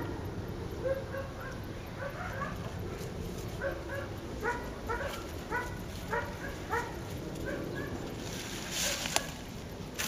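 A dog barking over and over in short, quick barks that come in little bursts. A brief hiss and a sharp click come near the end.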